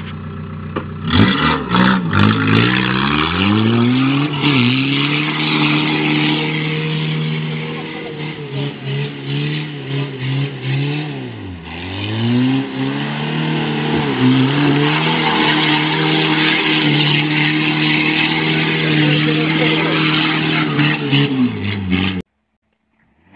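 Car engine revving hard, its pitch climbing and falling again and again, with one deep drop about halfway through; it cuts off suddenly about a second before the end. A steadily running engine is heard for the first second.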